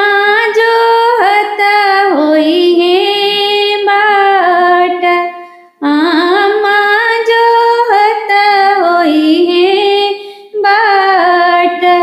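A woman singing a folk wedding song for a son's marriage in long, held, gliding phrases, with two short breaks between phrases about six and ten and a half seconds in.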